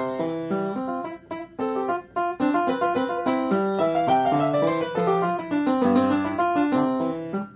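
Solo piano playing a classical piece in chords and melody, with a few brief breaks between chords about one to two seconds in.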